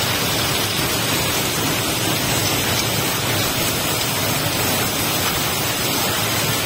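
A steady, even rushing hiss with no pitch or rhythm.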